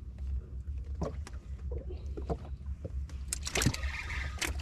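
Sounds aboard a small fishing sampan at sea: a steady low rumble under scattered knocks and clicks against the boat, with a hiss setting in near the end.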